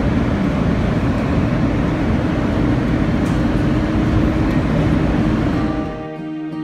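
Elevated subway train running on its steel track, heard from inside the car: a dense rumble with a steady low hum. About six seconds in it cuts off abruptly to gentle guitar music.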